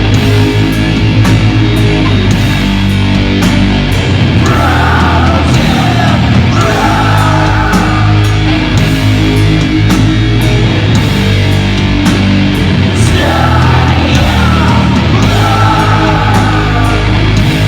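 Doom metal band playing live, loud and heavy, with slow, long-held low chords. A higher wavering line rises over the chords twice.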